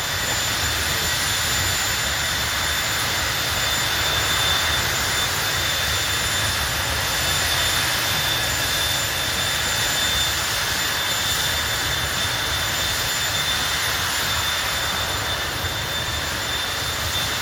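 Jet turbine running steadily: an even, loud rush with a high whine held on one pitch, with no revving up or down.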